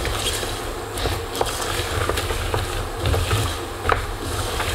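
Wooden spoon stirring whole hazelnuts and almonds in a stainless steel saucepan: scraping with scattered clicks of nuts against the metal over a steady low hum. The sugar syrup is crystallising into a sandy coating on the nuts, the normal 'massing' stage of homemade praline.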